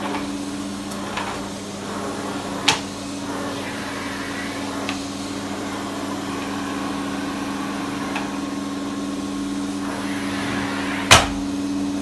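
Canister vacuum cleaner running with a steady hum as its floor nozzle is pushed over a rug. A few sharp knocks cut through, the loudest near the end.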